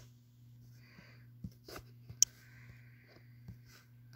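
A few faint, sharp taps of a fingertip on a phone touchscreen over a low steady hum, the clearest at the start and about two seconds in.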